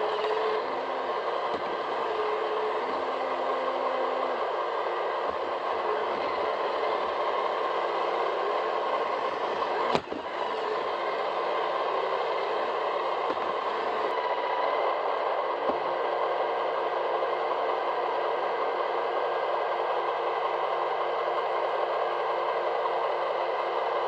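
iRobot Roomba 885 robot vacuum running, its vacuum motor and brushes making a steady whir, heard from a microphone riding on top of the machine. A single sharp knock comes about ten seconds in.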